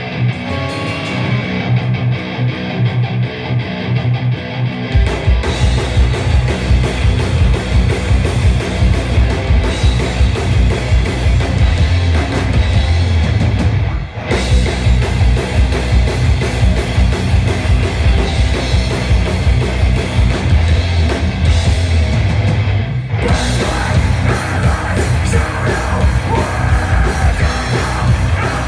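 A rock band playing loud live music with drums and guitar. It starts sparser, the full band comes in hard about five seconds in, there is a brief break near the middle, and it gets fuller again near the end.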